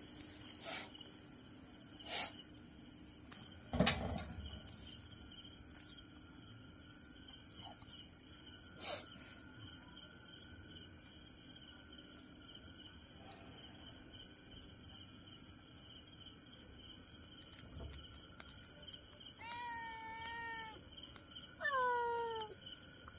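Insects chirping steadily at night, a high pulsing chirp about twice a second. A few knocks and a low thump come about four seconds in, and near the end a cat meows twice, the second meow falling in pitch.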